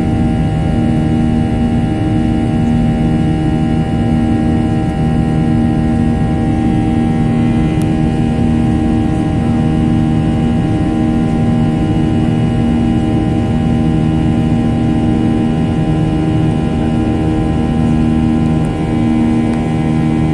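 Boeing 737-800's CFM56 jet engines heard from inside the passenger cabin during the climb after takeoff: a steady loud rush with a low hum that swells and fades every couple of seconds.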